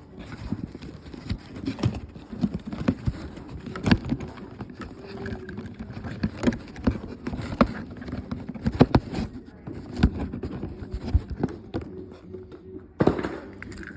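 Diecast toy cars and their plastic packaging being handled: irregular clicks and light knocks.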